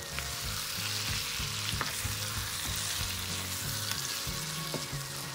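Chicken pieces frying in oil in a nonstick wok, sizzling steadily, stirred with a wooden spatula that now and then clicks lightly against the pan. This is the final high-heat dry-frying (bhuna) stage, with the chicken cooked down dark.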